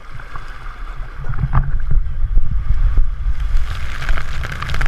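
Wind rumbling hard on a GoPro microphone over rushing water, growing louder over the last few seconds, as the rider starts down a water slide.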